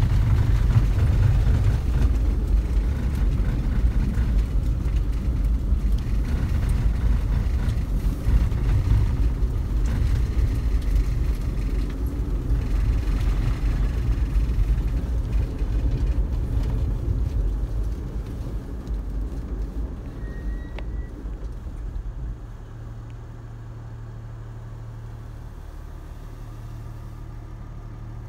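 Motor vehicle driving over a packed-snow road, a steady low rumble of engine and tyres. About 22 seconds in the rumble drops away, leaving a quieter, steady low engine hum.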